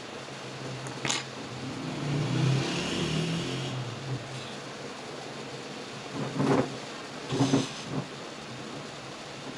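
Steady background hiss, with a low rumble that swells and fades about two to four seconds in. A click about a second in and a few short knocks between six and eight seconds in, from phone parts being handled.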